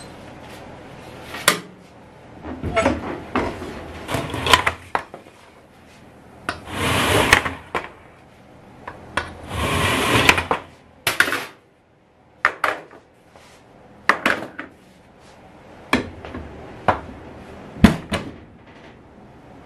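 Metal clanks and knocks from a stainless steel commercial oven and the aluminium tube pans of chiffon cakes being handled and pulled out of it, with sharp single knocks and two longer metal scraping sounds about seven and ten seconds in.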